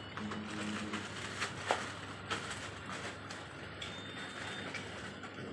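General background noise of a shop counter: an even clatter with scattered sharp clicks and knocks, and a short high beep about four seconds in.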